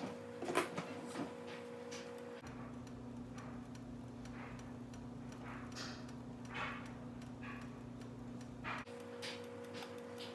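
Panini press ticking in a rhythmic beat as it heats. A low hum comes in about two and a half seconds in and stops with a louder click near the end.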